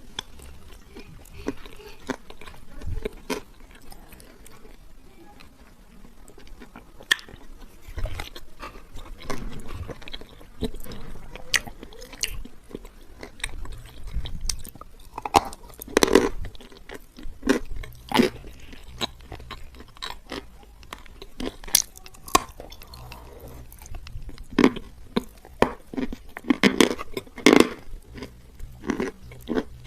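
Close-miked biting and chewing of dry edible clay: sharp crunches and crackles, sparse at first, then coming thicker and louder in the second half.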